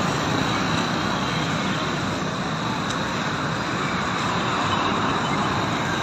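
Steady road traffic noise from a busy street.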